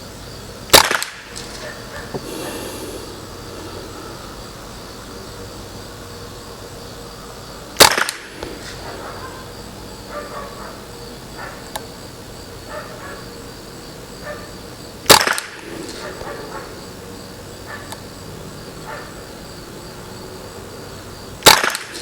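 Four single rifle shots from a Ruger 10/22 Target semi-automatic .22LR firing Lapua Center-X match ammunition, each a sharp crack about seven seconds apart, with faint small clicks between shots. Crickets chirr steadily in the background.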